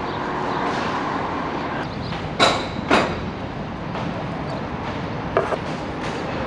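Construction-site noise: a steady rumble, broken a couple of seconds in by two sharp knocks about half a second apart, and a lighter knock later.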